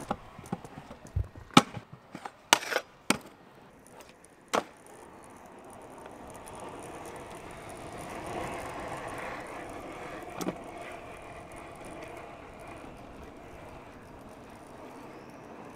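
Pro scooter being ridden: a run of sharp clacks and knocks in the first few seconds, then the wheels rolling on asphalt as a steady low rumble, with one more clack about ten seconds in.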